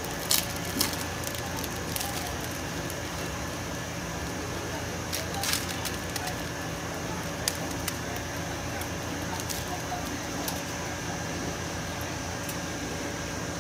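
A card-backed plastic fishing-hook package being handled and opened by hand, with sharp crinkles and snaps about half a second in, again at about five and a half seconds, and once more a couple of seconds later. A steady background hum runs underneath.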